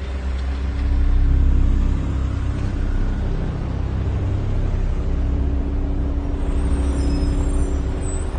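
Deep, steady rumble of cars idling in stalled traffic, with a sustained low hum over it that swells briefly about a second in.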